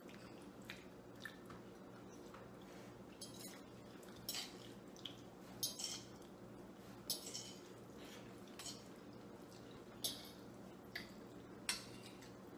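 Metal forks clicking and scraping on dinner plates as two people eat macaroni goulash, with eating sounds. Scattered short clicks come at irregular intervals over a faint steady hum.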